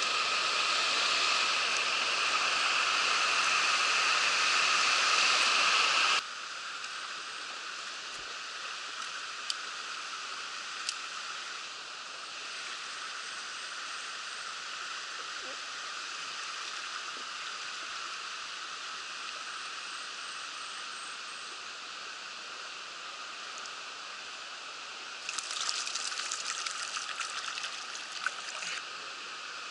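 Mountain stream water rushing steadily. The rush is loud at first and drops suddenly to a quieter level about six seconds in, and a few seconds of louder crackling noise come in near the end.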